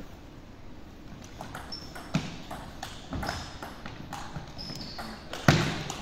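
Table tennis rally: the celluloid ball clicking off bats and table in an uneven run, with brief high squeaks of shoes on the wooden floor. The loudest hit comes near the end.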